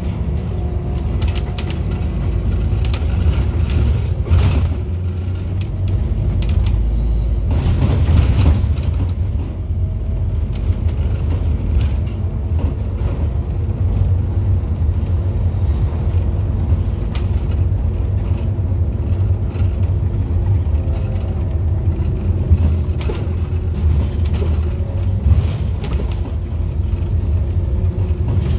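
Interior of a Scania OmniCity single-deck bus on the move: steady low diesel engine and road rumble, with light rattles from the fittings and a couple of louder bumps around four and eight seconds in.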